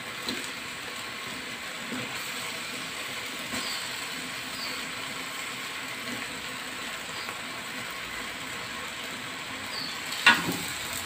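Raw chicken pieces and blended spice paste sizzling in hot oil in a wok, a steady hiss with a few light clicks. About ten seconds in, a couple of sharp knocks stand out.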